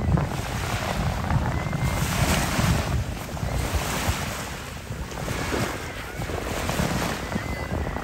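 Wind buffeting the microphone with a steady low rumble, over shallow sea water washing and splashing in repeated bursts.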